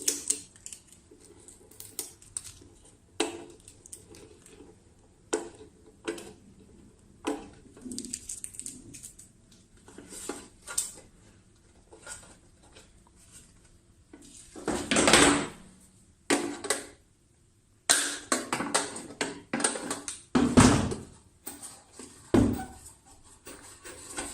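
Metal clicking and clattering as the screws and nut on an electric heater's cover are undone and the cover is worked off, with several louder scraping clatters in the second half.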